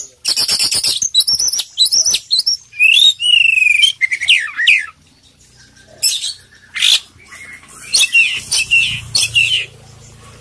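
Oriental magpie-robin (white-bellied 'kacer poci' variety) singing loudly and energetically: a rapid run of clicking notes, then sliding whistles and varied phrases full of mimicked song, with a short pause about halfway through.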